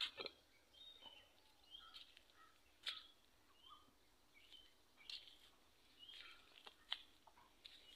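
Faint, scattered short bird chirps, with a few brief clicks in between.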